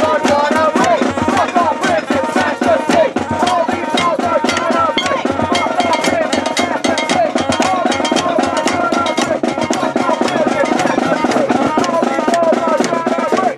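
A noise-parade crowd banging drums and other percussion, many rapid, ragged hits a second, with crowd voices over the din.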